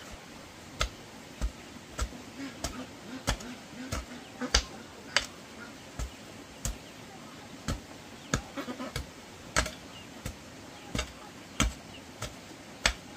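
Repeated sharp strikes of a hand tool on wood or bamboo, coming irregularly about one to two a second, typical of chopping or knocking during construction work.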